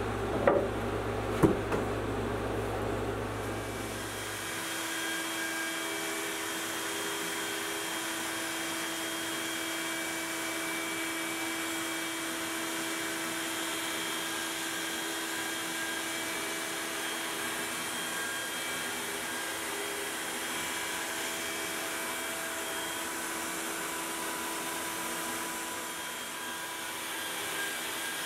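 A couple of knocks from wooden boards being handled about a second in. Then, from about four seconds in, the steady whine of a Makita compact router spinning in a Onefinity CNC machine as it carves lettering into a wooden sign, with dust extraction drawing air through the hose on the router.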